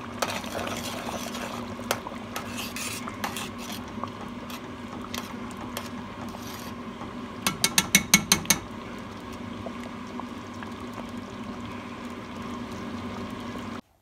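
A pot of chicken porridge simmering, with a steady hum underneath and occasional single clicks of a metal utensil. A little past halfway, a quick run of about eight metal clinks as metal chopsticks stir against the pot. The sound cuts off abruptly just before the end.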